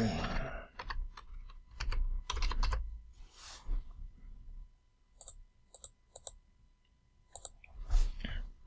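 Computer keyboard typing and clicks: a quick run of keystrokes in the first few seconds, then a few single clicks spaced apart near the end.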